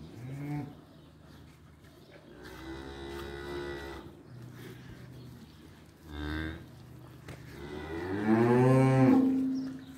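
Low moos from a Holstein cow calling to her newborn calf just after calving: four calls, two short and two longer, the last one near the end the loudest and longest.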